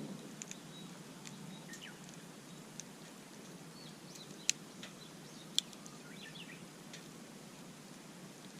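Wood campfire crackling, with two sharp pops about four and a half and five and a half seconds in, while small birds chirp.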